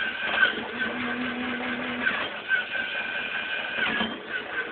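Lego Mindstorms NXT motor whining through its gears as it drives a Lego swing ride back and forth. The whine breaks off briefly about two seconds in and again near the end.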